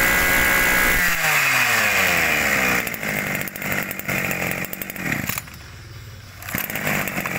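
Small two-stroke brush cutter engines. One running steadily at speed is switched off about a second in and winds down with falling pitch. An engine then keeps running unevenly at a lower level, drops away briefly near the end, and picks up again.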